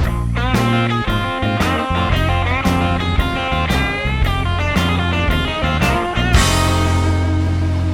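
Background music: a guitar-led rock track with a bass line and a steady beat.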